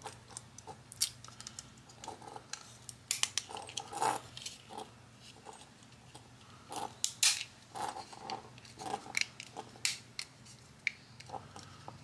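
Irregular small clicks, taps and rustles of a plastic garage door remote and its soldered wires being handled, as the remote's case is fitted back together.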